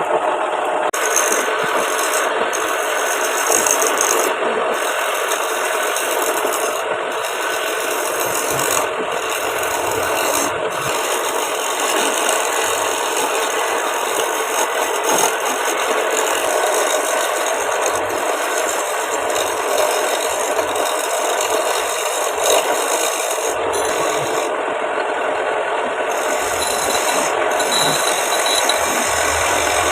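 Homemade wood lathe turning a wooden blank, with a tool held against the spinning wood making a steady rasping noise.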